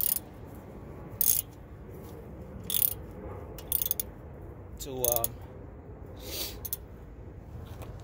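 Hand ratchet clicking in short bursts, about five in all, as a socket runs the castle nut down onto the stud of a new outer tie rod end, tightened by hand without a torque wrench.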